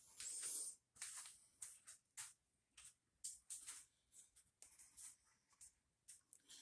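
Faint, irregular scratching and rustling of hands handling and wrapping wire leads.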